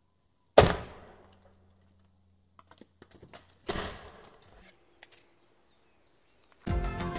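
Two hand-hammer blows on a wooden plank lying on a steel anvil, the wood cracking and splintering; the first blow, about half a second in, is the louder, the second comes about three seconds later, with a few small clicks between. Music begins near the end.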